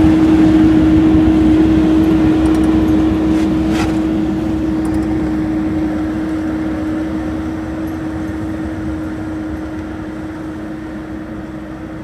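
Caterpillar backhoe's diesel engine running steadily with a constant tone, growing gradually fainter as the machine drives away down the snowy driveway.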